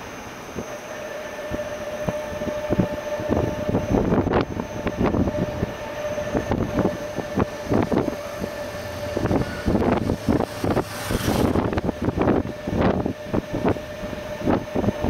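Ride aboard an electric tourist train: a steady high whine under frequent clatters and knocks from the moving carriages, with a short hiss about eleven seconds in.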